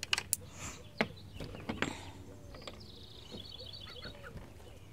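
A few sharp wooden knocks and clunks in the first two seconds as the hinged wooden nesting box on a chicken coop is handled to be opened. Later a small bird gives a quick high twittering run in the background, and young chickens cluck softly.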